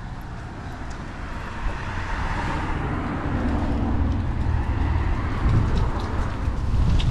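A car passing on the street, its tyre and engine noise swelling to a peak about three seconds in and then fading. A low rumble grows louder toward the end.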